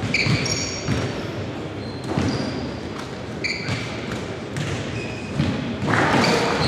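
Basketballs bouncing on a hardwood court in a large gym, with several short sneaker squeaks and a rush of noise about six seconds in.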